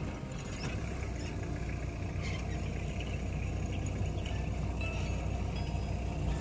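An off-road 4x4's engine running steadily at a low, even rumble, close to idle.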